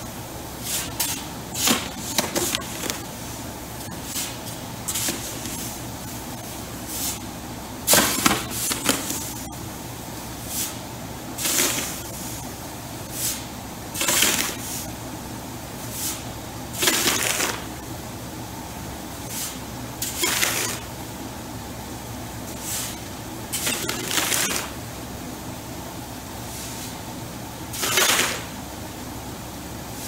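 Steel scoop shovel scraping into loose wheat and throwing it, about a dozen strokes spaced one to three seconds apart, ringing inside a corrugated steel grain bin. A steady machine hum runs beneath, from the slow 5-inch grain auger emptying the bin.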